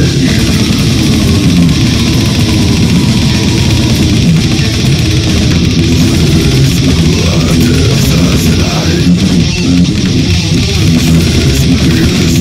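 Technical death metal recording with distorted electric guitars and bass, loud and dense throughout.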